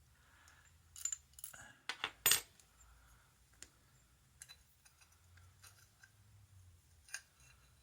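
Small metal parts of a vintage Yale padlock clinking and clicking as the lock is taken apart by hand. A quick run of sharp clinks comes in the first couple of seconds, then a few lighter ticks, with one more clink near the end.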